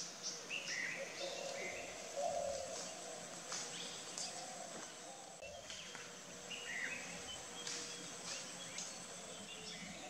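Dry tropical forest ambience: birds calling with short chirps and chirpy phrases, clustered near the start and again about two-thirds of the way through, over a steady background hum and a faint high insect drone, with a few sharp clicks scattered through.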